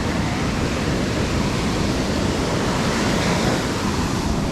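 Sea surf washing in on a beach, a steady rushing noise, with wind rumbling on the microphone.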